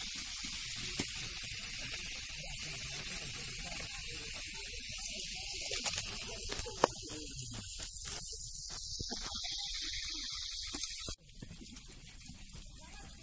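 Pork frying in a wok over a wood fire: a steady sizzling hiss with scattered small clicks. It cuts off abruptly near the end, leaving a quieter hiss.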